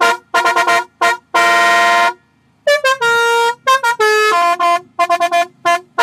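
Basuri musical air horn on a mini truck, fed by an onboard compressor, playing a 'telolet' melody: a quick run of short notes, a long held chord about a second and a half in, a brief pause, then more short notes and held tones.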